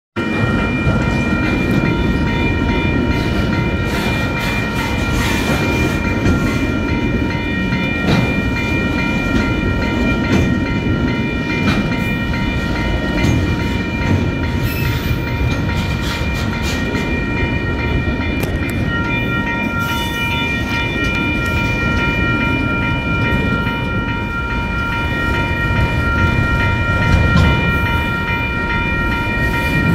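Freight train of autorack cars rolling steadily past at close range: a heavy rumble with wheel clatter and scattered sharp clicks from the rails, and a steady high-pitched ringing over it.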